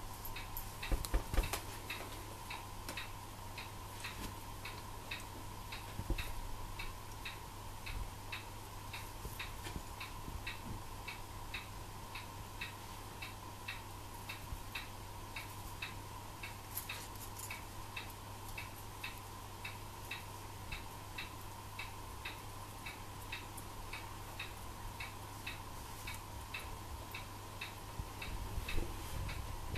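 Fast, even ticking that runs on steadily over a low electrical hum, with a few louder knocks about a second in and again near the end.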